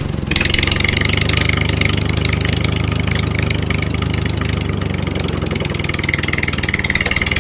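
Small tractor engine running steadily at an even idle, with a fast regular firing beat.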